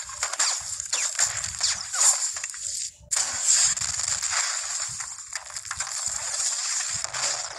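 Film battle sound effects: rapid gunfire and explosions, with a short break about three seconds in.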